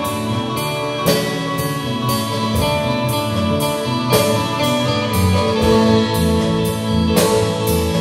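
Live instrumental slowcore rock band playing: a drum kit keeps a slow, steady beat with cymbal strikes about twice a second, over bass guitar and sustained electric guitar notes.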